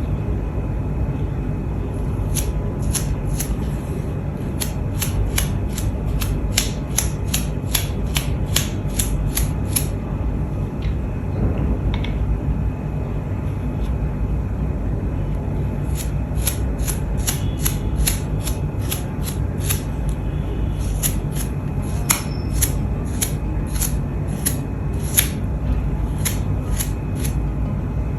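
Paintbrush bristles being flicked over and over to spatter yellow paint for a speckled texture: quick crisp ticks about three a second, in two long runs with a pause between them. A steady low hum runs underneath.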